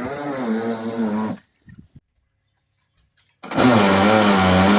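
An RC boat's small electric motor whining with a wavering pitch. It cuts off about a second and a half in, then starts again louder and steady near the end.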